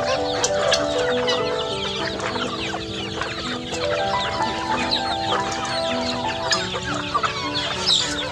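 A flock of chickens clucking and chirping busily as they feed, many short calls overlapping. Background music with slow held notes plays underneath.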